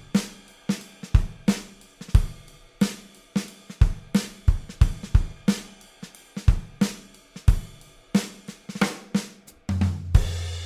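Background music: a drum-kit groove with kick, snare and hi-hat hits, about three a second, ending on a held low note with a cymbal ringing out near the end.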